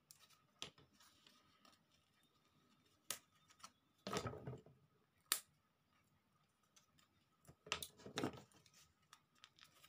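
A few sharp clicks and two short clusters of handling noise, about four and eight seconds in, from hands working a craft piece of thin wooden sticks.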